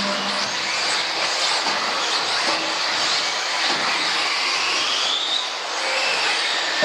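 Electric RC off-road buggies racing on an indoor carpet track: the motors whine and the tyres hiss on the carpet, with one car's whine rising in pitch as it accelerates about four to five seconds in.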